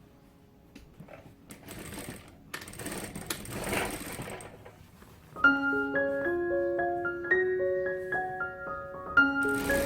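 Sewing machine stitching in short runs during the first half, then a plucked keyboard-like melody of background music comes in about halfway through, with the machine running again near the end.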